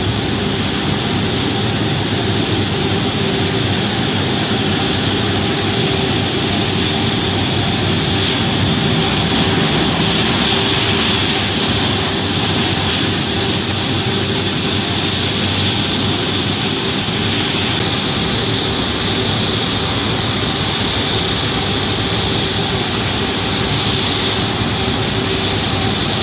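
Airliner engines, turboprop and jet, on the runway after landing: a steady rushing noise. A high whine rises and holds twice near the middle, and the sound changes abruptly about two-thirds of the way through.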